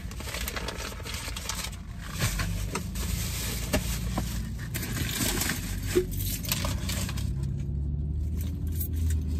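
Paper food wrappers, bag and a cardboard box rustling and crinkling as they are handled, with scrapes and small sharp clicks. A steady low hum comes in near the end.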